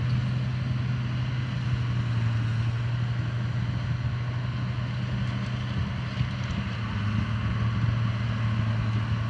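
Engine running steadily with a low, even drone; its pitch drops slightly about seven seconds in.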